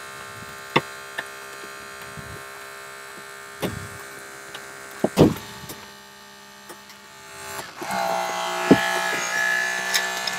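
Holmatro hydraulic rescue cutter (jaws of life) running with a steady motor hum while it shears through a car's B-pillar, with several sharp cracks as the metal gives, the loudest about five seconds in. Near the end the tool whines louder and higher as it works under load, then stops.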